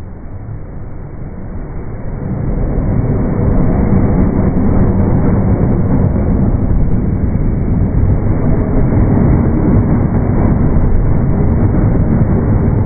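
Slowed-down, pitched-down sound of an electric commuter train passing over a level crossing: a deep rumble that swells about two seconds in and then holds.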